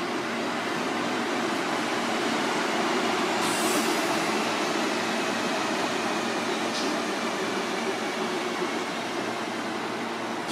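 Seibu 4000 series electric train running past on the track with a steady rumble of wheels on rails, a faint slowly falling whine, and two brief high hisses about three seconds apart.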